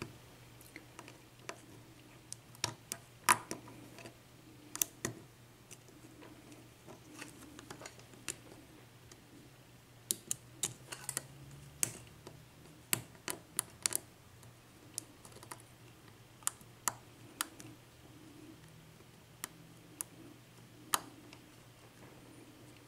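Small, irregular metallic clicks and ticks of a lock pick working the pin stacks of a Best 6-pin padlock under light tension, with one pin still unset. The clicks are scattered unevenly, some in quick little clusters.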